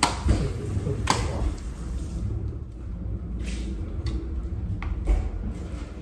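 Close-up mealtime noises: chewing and food handling, with a sharp click about a second in and a few shorter rustles and clicks later.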